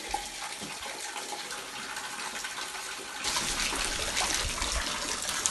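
Sewage water pouring in through a leaking apartment ceiling and splashing into a cooking pot set out to catch it, a steady rushing that grows louder about three seconds in.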